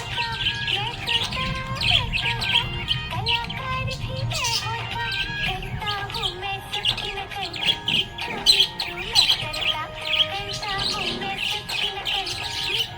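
Budgerigars chirping and warbling continuously over background music.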